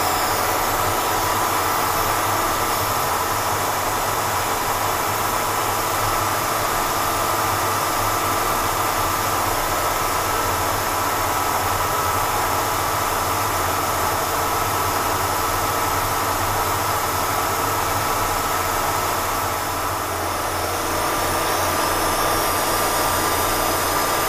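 Milling machine running under feed, a roughing end mill taking a half-inch-deep cut along a slot, with a steady whine and the hiss of an air-driven mist coolant sprayer.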